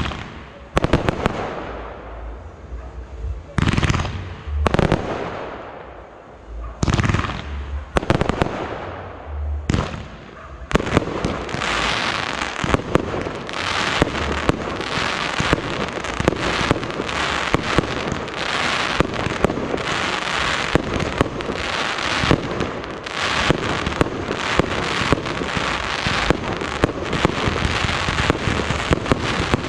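Fireworks display: for the first ten seconds or so, separate shell bursts, each a bang followed by a fading crackle. Then a dense, continuous barrage of rapid cracks and bangs.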